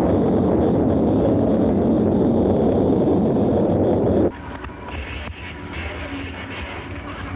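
Loud, steady jet-engine roar that cuts off abruptly about four seconds in, followed by quieter engine noise with a faint high whine.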